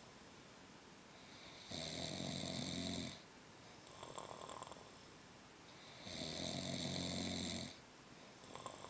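Deep, rhythmic snoring: two long, loud snores about four seconds apart, with softer breaths between them.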